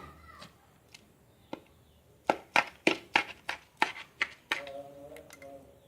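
A spoon tapping and knocking against a funnel as rice stuffing is pushed down into a sheep intestine casing: a run of sharp taps, about three a second, and then a brief steady tone about four and a half seconds in.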